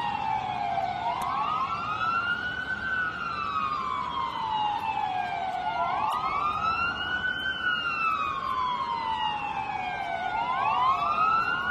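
Sirens in a slow wail: each sweep rises over about two seconds and falls away over about three, three cycles in all, with a second siren sounding just out of step with the first.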